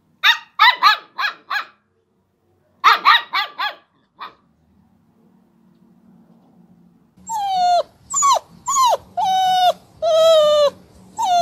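A puppy yapping in two quick runs of four short, high barks, then one more yip. After a pause, a pug gives a string of long, drawn-out whining cries, each about half a second, several dropping in pitch at the end.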